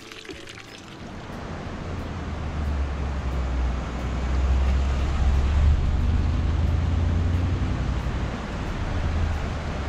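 A Mercedes-Benz G-Class SUV driving past close by: a low engine-and-tyre rumble that builds over a few seconds, is loudest in the middle, and eases off near the end.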